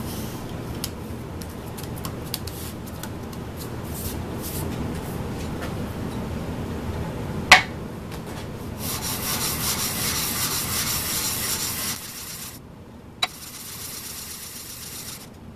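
Small aluminum plate lapped by hand on a sheet of sandpaper, a scratchy hiss of strokes back and forth to sand the milled surface lines smooth. Before that, the sandpaper is handled and pressed flat with a few light clicks. A sharp tap comes about halfway through, and another a couple of seconds before the end, between bursts of sanding.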